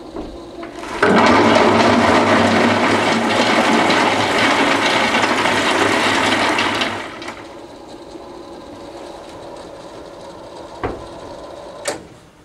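Coal pouring from an overhead coaling bunker through its chute into a steel tipper cart, a loud rush lasting about six seconds that stops fairly abruptly when the chute is closed. Two sharp knocks follow near the end.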